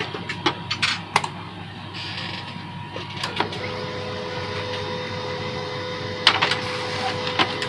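Canon LBP 2900 laser printer starting a print job: a few clicks, then from about three and a half seconds in its drive motor and gear train run with a steady whine, with further clicks of the paper-feed mechanism near the end. The squeak it is in for repair does not occur on this run.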